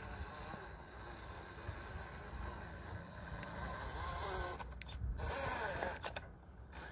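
Brushless outrunner motor of an RC rock crawler whining, its pitch gliding up and down with the throttle as it crawls over rock. Tyres and chassis scrape on the stone, with a few sharp knocks about five seconds in.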